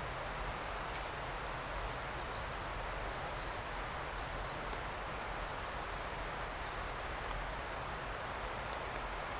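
Steady outdoor background noise of air moving through the woods. From about two to seven seconds in, a run of faint, quick, high chirps sounds over it.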